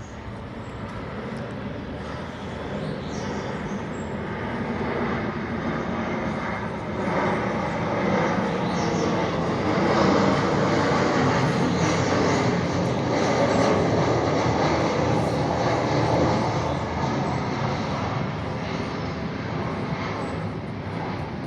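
Airplane on approach passing overhead: engine noise swells over several seconds, is loudest around the middle, then eases off slightly.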